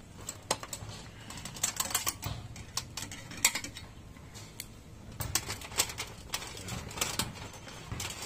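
Irregular small clicks and taps as wires and hands are worked around an electronic ballast in a sheet-metal fluorescent light fixture housing, coming in scattered clusters.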